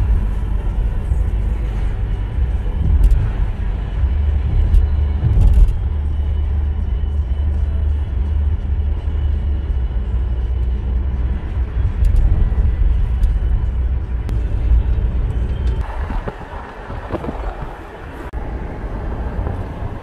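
Inside a moving car: steady low road and engine rumble with tyre hiss, the rumble thinning out a little after three-quarters of the way through.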